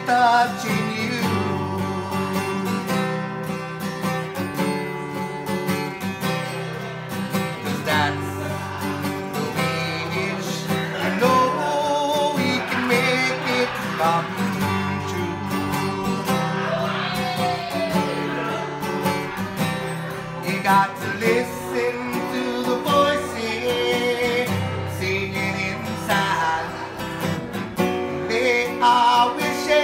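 Two guitars played together, one of them a black acoustic guitar being strummed.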